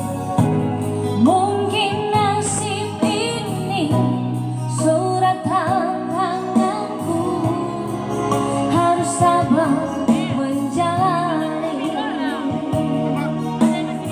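A woman singing a melody with long held, wavering notes over instrumental backing.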